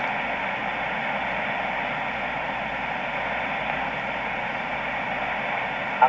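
SunSDR2 DX software-defined radio receiving the 20-metre band in upper sideband, playing steady band noise (static hiss) through a laptop speaker with a faint steady tone in it. The channel is open with no station talking.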